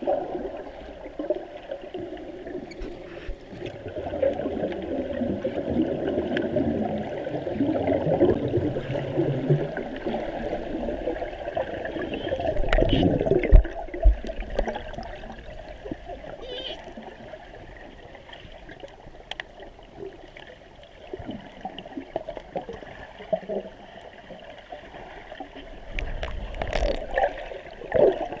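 Muffled gurgling and splashing water with a few knocks, swelling to a louder rush about halfway through.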